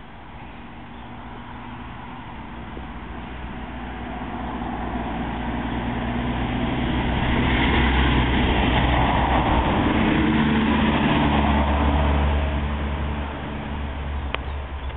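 A motor vehicle passing on a nearby road: a low engine drone with tyre noise that builds steadily for about eight seconds, holds, then fades near the end.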